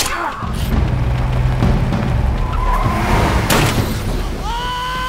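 Film sound effects of a car in an action scene: a sharp hit at the start, a car engine's low rumble, another hit about three and a half seconds in, and a high tyre squeal near the end.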